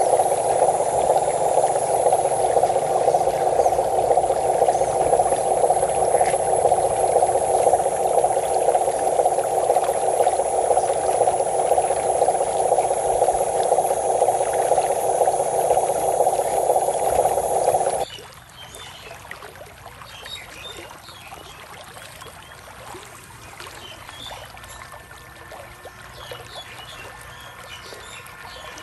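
Water running and pouring across a flooded dirt track, loud and steady, until it drops off abruptly about two-thirds of the way in to a much quieter trickling and splashing.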